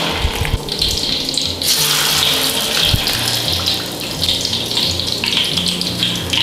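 Battered pork slices deep-frying in hot oil in a wok: a steady crackling sizzle that grows louder about a second and a half in.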